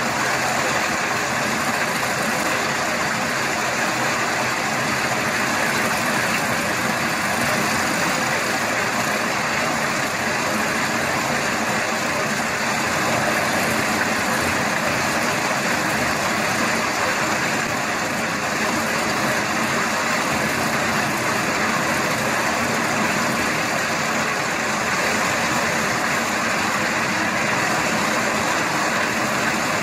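Steady engine noise from heavy construction machinery, running at an even pitch without revving.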